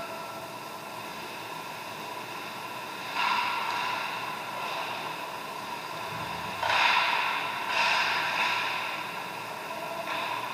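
Ice hockey rink during play: a steady hiss of the arena with surges of scraping noise about three seconds in and again from about seven to nine seconds, as skate blades cut and scrape the ice.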